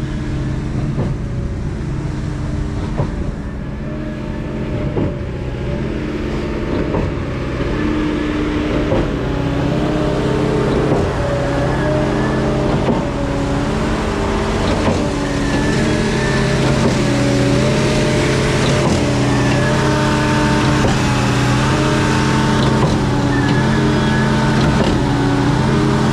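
Reed B50G concrete pump running on its 7.3 L Ford gasoline V8, a steady engine drone under a motor whine that steps up and down in pitch about once a second with the pumping strokes. Faint regular knocks can be heard in the first seconds.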